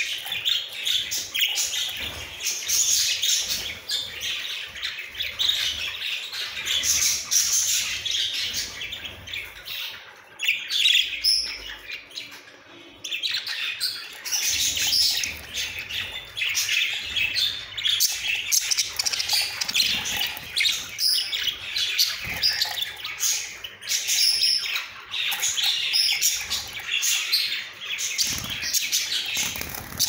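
Several budgerigars chattering and chirping, a constant stream of fast, high warbling calls that goes quieter for a few seconds about ten seconds in.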